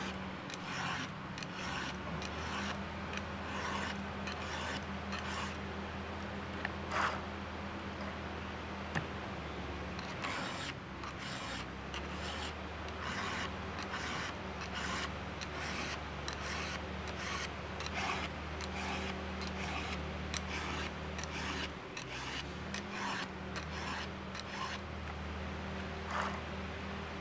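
Repeated rasping strokes of a hand-held round chainsaw file across the cutters of an Oregon 3/8" full-chisel chain on a Stihl 661C, stroke after stroke in short runs, sharpening a chain that had gone dull.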